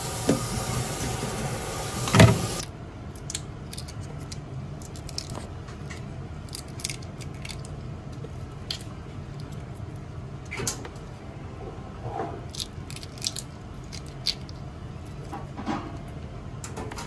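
Boiled shrimp are tipped from a plastic colander into a stainless steel pot, with a clatter about two seconds in. Then comes a run of small, scattered clicks and crackles of shell as the shrimp are handled one by one and their heads pulled off by hand.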